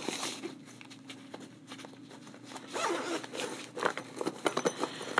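Zipper on a gun case being pulled open: a quick run of short rasping clicks, with handling rustle, starting a little before halfway through.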